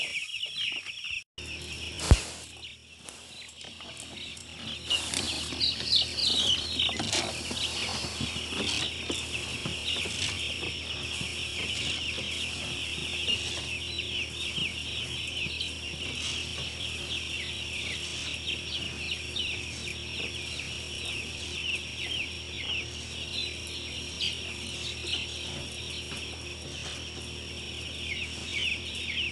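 A flock of young broiler chicks peeping continuously, many short high cheeps overlapping, over a steady low hum. A single sharp click about two seconds in.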